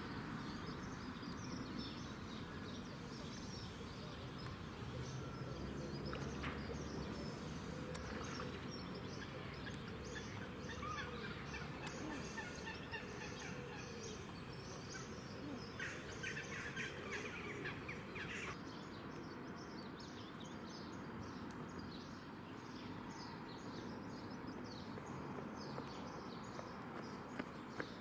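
Outdoor bird chorus over a steady low background rumble: many small birds chirp throughout, and waterfowl call among them. A denser run of calls comes a little past halfway.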